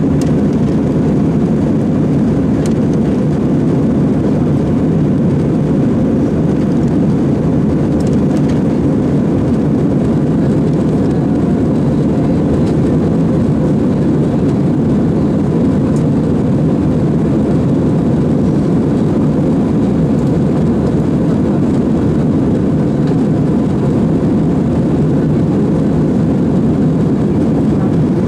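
Steady drone of a jet airliner's engines and rushing airflow, heard from inside the passenger cabin while the aircraft climbs after take-off. The noise is deep and even, with no change in level.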